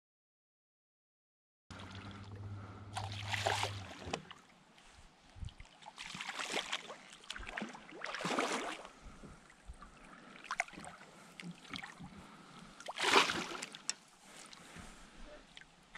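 Hooked largemouth bass splashing and thrashing at the surface beside a kayak in several separate bursts, the loudest near the end, with small clicks between.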